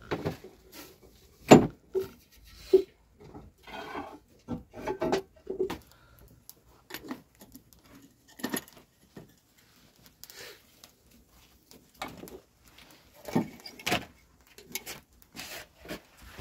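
Metal kettle and teapot being handled by the fire: irregular clinks and knocks of metal on metal and stone, a few ringing briefly.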